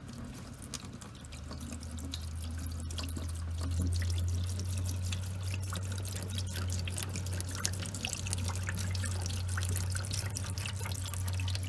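Water poured into a bathtub running down through a freshly glued PVC tub drain and P-trap, heard from just beneath the pipes during a leak test: irregular splashing, trickling and dripping over a steady low hum.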